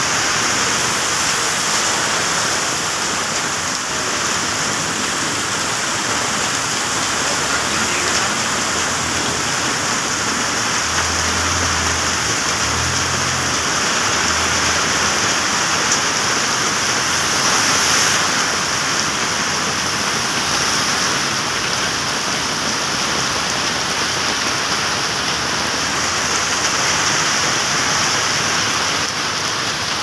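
Heavy tropical downpour: a steady hiss of rain pouring onto the road and surroundings, with a low drone for a few seconds about halfway through.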